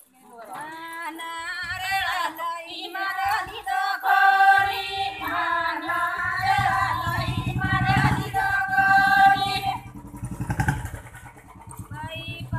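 Women singing a Banjara devotional song together in high voices. The singing breaks off about ten seconds in and starts again near the end. From about halfway through, a low, rapid, steady throbbing sounds underneath the singing.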